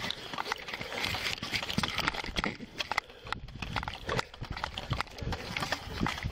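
Irregular clicks, knocks and rubbing of uniform and gear against a body-worn camera's microphone as the wearer shifts position.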